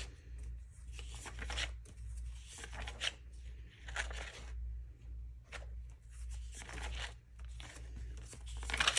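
Sticker-book pages being flipped and handled: a run of irregular papery rustles and swishes, over a steady low hum.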